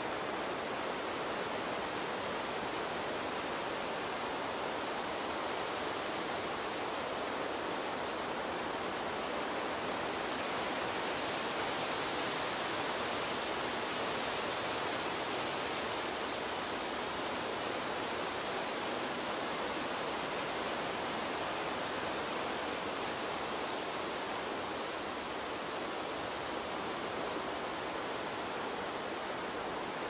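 Wind blowing as a steady, even rushing hiss, swelling slightly and getting brighter around the middle.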